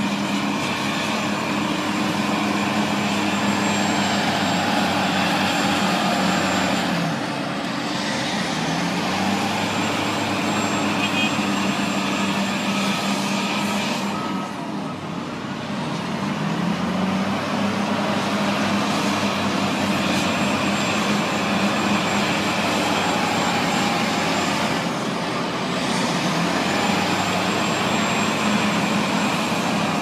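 Heavy diesel engines of a Caterpillar hydraulic excavator and articulated dump truck running under load, the engine note sagging and climbing back up three times. A thin high whine comes and goes over the engine sound.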